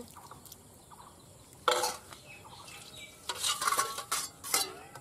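Metal ladle clinking and scraping against a round iron curry pan and stainless-steel bowls as curry is ladled out. There is one loud clink a little under two seconds in, then a run of clinks in the second half.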